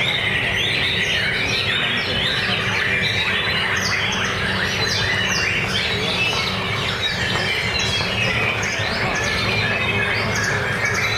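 White-rumped shama (murai batu) singing in its cage: a rapid, unbroken run of varied chirps and whistles, overlapping the songs of many other songbirds singing at once, over a steady low hum.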